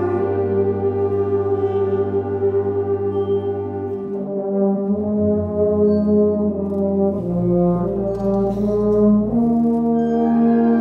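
Band with brass playing slow, held chords over a low bass line, the chords changing every few seconds, with a euphonium among the instruments.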